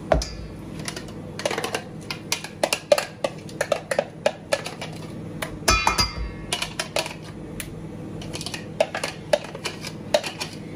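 Utensil scraping and knocking against a food processor bowl while minced chicken is scooped out: a run of irregular clicks and knocks, with a louder ringing clink about six seconds in.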